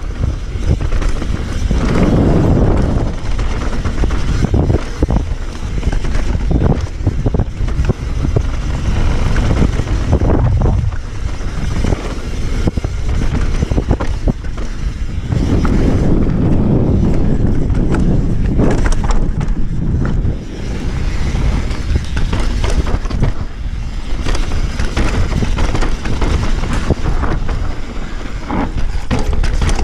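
Mountain bike descending a dusty dirt trail at speed: knobby tyres rolling and crunching over loose dirt and rocks, with the bike rattling over bumps and a steady rushing rumble underneath.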